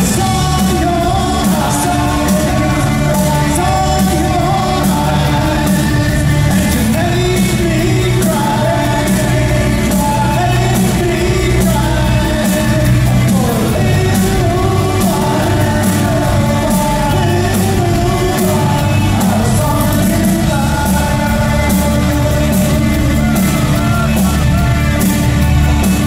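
A live new-wave rock band playing, with a lead voice singing over electric guitars, bass, keyboards and a steady drum beat.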